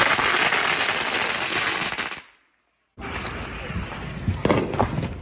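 Fireworks going off in a dense, rapid run of crackling pops for about two seconds, which cuts off abruptly into a moment of dead silence. After it come fainter crackle and a few separate bangs.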